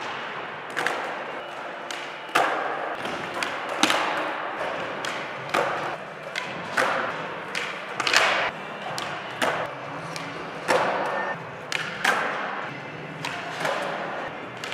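Skateboards on a concrete floor: wheels rolling, with repeated sharp clacks and thuds of boards popping and landing during flatground tricks.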